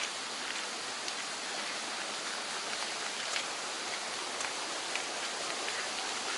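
Steady rushing of a mountain stream, with a few faint, scattered ticks over it.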